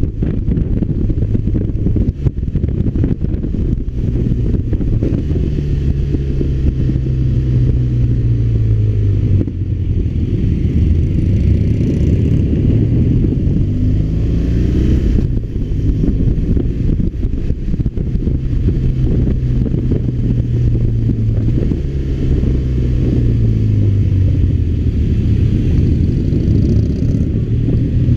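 BMW R1200RT's boxer-twin engine on the move, its revs falling away twice and climbing again between gear changes.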